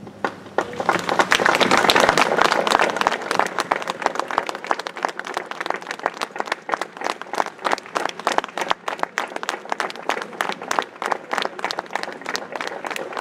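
Audience applauding. The clapping builds about a second in, is thickest over the next few seconds, then carries on as many distinct claps.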